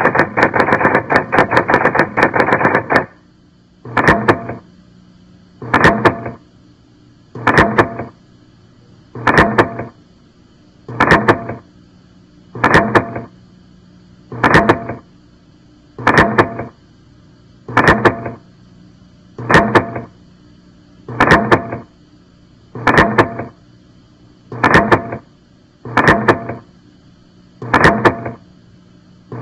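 A repeating pulsed tone: a rapid string of pulses for about three seconds, then a short burst roughly every second and three-quarters, with a faint steady hum underneath.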